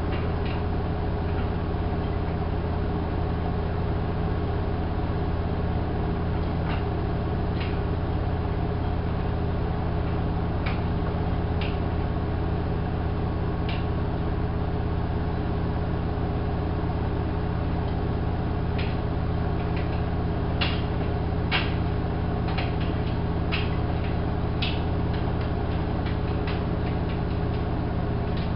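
Hanseatic HWM814A3D front-loading washing machine (Vestel-built) running, with a steady low motor hum and scattered light clicks that come more often in the second half.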